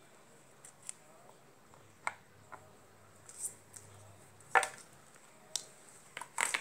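Scattered clicks and light knocks from hands handling an opened plastic hot glue gun housing and a small screwdriver. The sharpest knock comes about two-thirds of the way in, and a quick cluster of clicks comes near the end.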